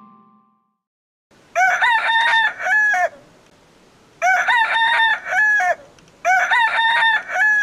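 Rooster crowing three times, each crow about a second and a half long and all three of the same shape, the first coming about a second and a half in.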